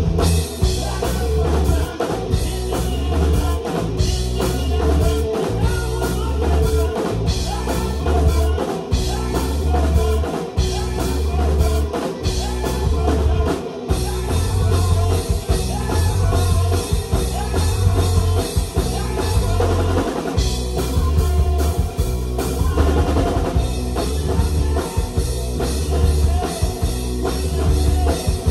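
Live rock band playing, with drum kit and a heavy low end driving a steady beat.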